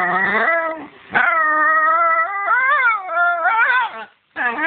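Italian greyhound play barking: a run of long, drawn-out pitched calls, one rising and then falling, with a short break near the end before another call starts.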